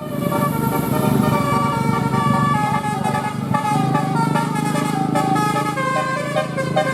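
Bus 'telolet' multi-tone air horn playing a quick tune of short stepped notes over a low engine rumble.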